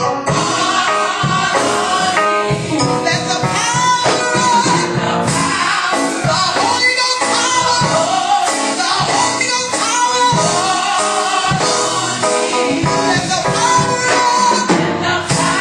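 A women's gospel group singing together into microphones.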